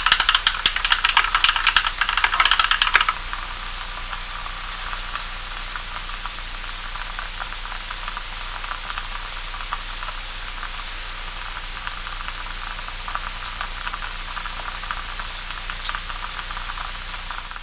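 Typing on a mechanical keyboard with linear Kailh Cream switches, lubed with Krytox 105 oil and filmed: a dense run of rapid key clacks that stops about three seconds in. After that, a steady hiss with a few faint scattered key clicks.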